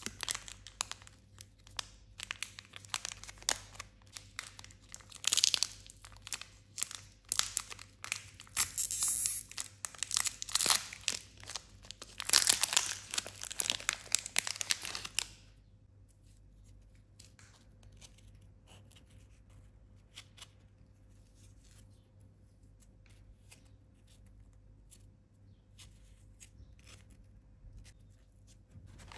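Foil-lined plastic snack wrapper of a sandwich biscuit crinkling and tearing as it is opened by hand, in loud bursts. About halfway through it stops suddenly, leaving only faint light handling sounds.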